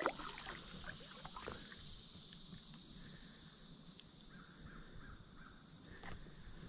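Steady high-pitched insect chorus drifting over a quiet river, with a couple of faint knocks in the first second and a half and a few faint short calls in the middle.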